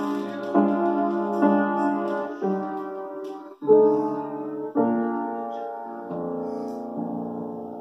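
Piano playing a slow run of full chords, the last one struck about six seconds in and held as it fades, closing the piece.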